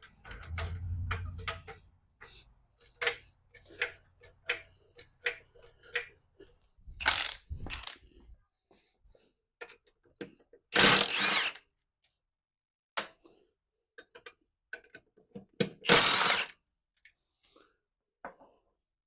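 Tools and metal parts being handled: a run of scattered clicks and clanks, with two short, loud noisy bursts about five seconds apart.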